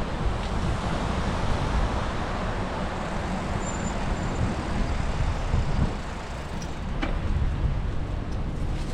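Steady city traffic and road noise with wind rumbling on the microphone, as heard from a moving bicycle. One sharp click about seven seconds in.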